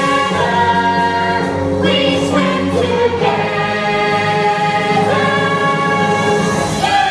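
Show-tune music with a choir of voices holding long sung notes over orchestral backing.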